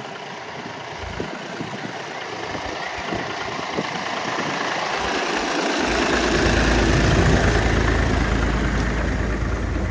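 Tractor engine running as it pulls a potato digger, growing steadily louder to a peak about seven seconds in, with a deep rumble from about six seconds on.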